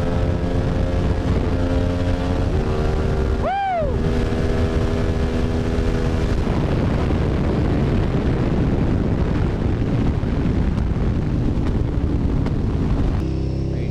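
Remapped KTM 1290 Super Duke GT's V-twin engine running at speed, heard onboard, with one quick rise and fall in revs about three and a half seconds in. From about the middle on, a rushing wind noise on the microphone covers most of the engine sound.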